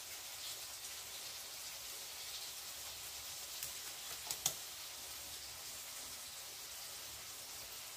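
Blended shallot, garlic and dried-shrimp spice paste sizzling steadily as it fries in a pan, with a few sharp crackles about four seconds in.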